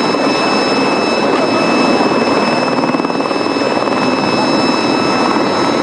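Light helicopter flying low overhead: a loud, steady rotor noise with a fast flutter and a high turbine whine.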